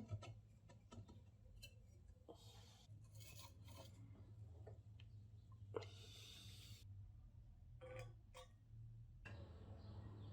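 Near silence: faint scattered clicks and a few brief light scrapes over a low steady hum.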